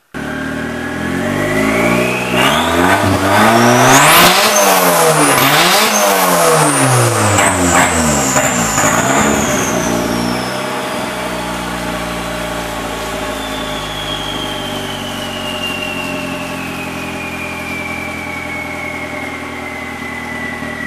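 Turbocharged Nissan GA16DE four-cylinder engine revved several times, rising and falling, then settling into a steady idle. A high whistle climbs with the revs and then slowly falls in pitch.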